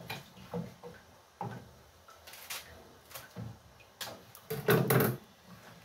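Knife cutting tomatoes on a wooden chopping board: irregular taps and clicks of the blade against the board, with a louder cluster of knocks near the end.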